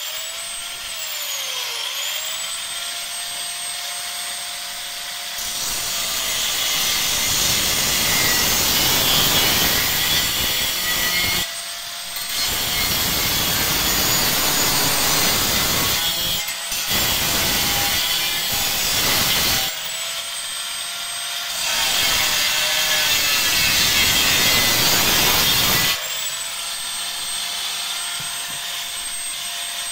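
Angle grinder with a cut-off disc cutting into the steel shell of a refrigerant cylinder. A steady high whine while the disc spins free, dipping and recovering about two seconds in, turns into a loud harsh grinding four times as the disc bites into the metal, with short free-spinning gaps between passes, and the grinder spins free again near the end.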